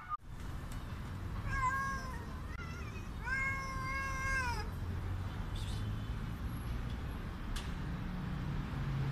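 Hungry street cat meowing loudly: short meows about a second and a half in, then a long drawn-out meow that falls away at its end.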